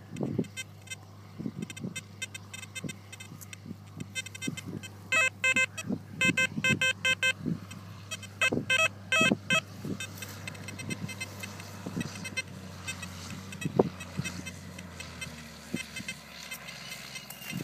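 XP Deus metal detector with a small elliptical coil giving bursts of rapid pulsing beeps, three bursts between about five and nine and a half seconds in, as a handful of soil is passed over the coil: the signal of a small metal target in the soil. Soft knocks from handling come throughout.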